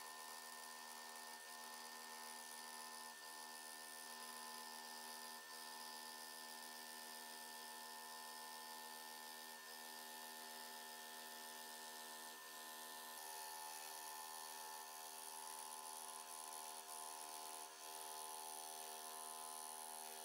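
Scroll saw running at a steady speed, its fine reciprocating blade cutting through a thick wooden board: a steady hum with a hiss.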